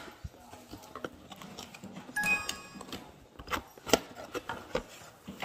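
Cardboard packaging of a boxed mini sewing machine being handled: flaps and a cardboard insert lifted and pulled out, giving scattered knocks, scrapes and rustling, with a brief squeak a little over two seconds in.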